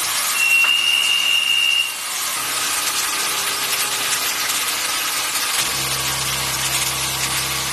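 Five-axis CNC machining center cutting with a carbide tool: a steady hiss of cutting, with a high whine for the first couple of seconds. A low machine hum comes in after a couple of seconds and grows louder about five and a half seconds in.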